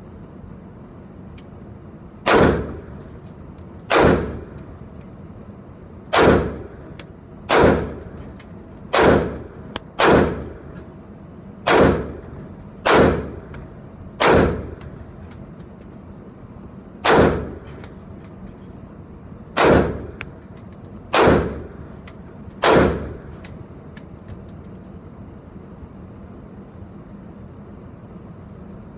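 Lightweight AR-15 rifle firing thirteen single shots at an uneven pace, roughly one every second or two, each a sharp report ringing off the walls of an indoor range. Light metallic clinks follow several shots, and the firing stops about three-quarters of the way through.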